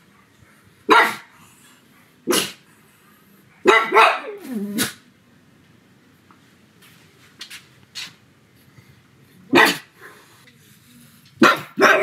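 A pug barking in separate sharp barks: one about a second in, another just after two seconds, a quick cluster near four seconds that ends in a bark falling in pitch, then after a pause of several seconds more barks near the end.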